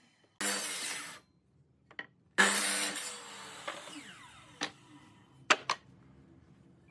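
Makita miter saw cutting through pine boards in two short cuts, the second followed by a falling whine as the blade winds down. Then a few sharp knocks of wooden boards being set down.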